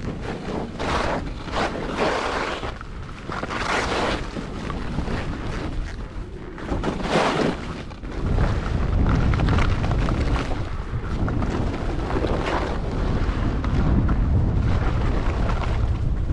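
Skis carving turns on snow: a series of scraping swooshes, one per turn, through the first half. About halfway through, a steady low wind rumble on the microphone takes over.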